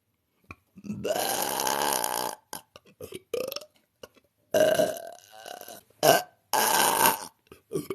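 A woman burping repeatedly: a long drawn-out belch begins about a second in, followed by several short burps and two more long belches.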